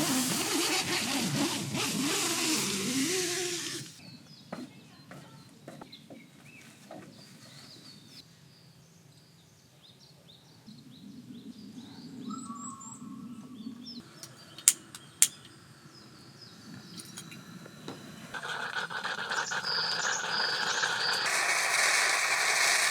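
Small birds chirping now and then in a forest, under two stretches of loud, unidentified noise in the first four seconds and from about 18 seconds on, with two sharp clicks about halfway through.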